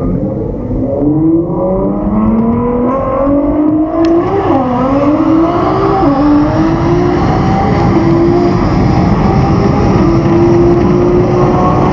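Race car accelerating flat out down a drag strip: its engine note climbs steadily in pitch, dips and recovers twice, about four and six seconds in, like gear changes, then holds high and steady at speed over heavy road and wind noise.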